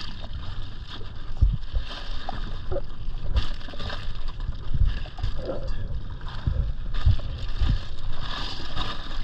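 Water sloshing around a drifting jet ski, with the rustle of an insulated fish bag and its ice as fish are packed into it. Irregular low thumps from wind buffeting the microphone run through it.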